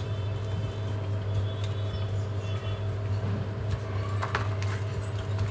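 A few light knocks and clicks of the mixer-grinder motor's metal field coil being handled and fitted, over a steady low hum.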